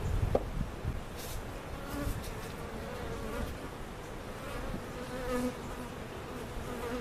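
Honey bees buzzing as they fly close past the microphone, their hum coming and going and drifting in pitch.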